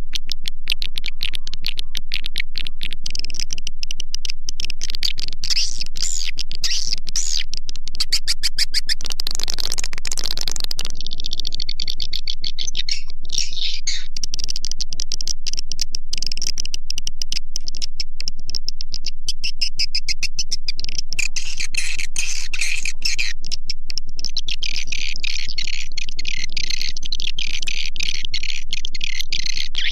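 Swiftlet calling-sound track (suara panggil): dense, rapid trains of high twittering chirps and clicks of edible-nest swiftlets, edited and kept at a constant loud level, played to lure swiftlets into a nesting house. A rough hiss covers the chirping about ten seconds in.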